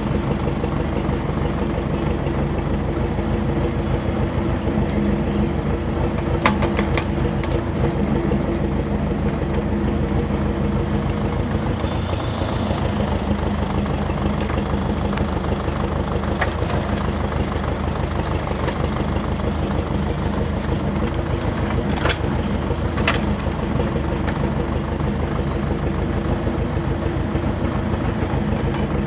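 MTZ-82 tractor's four-cylinder diesel engine running steadily while it powers the timber crane, with a few sharp knocks as posts are handled.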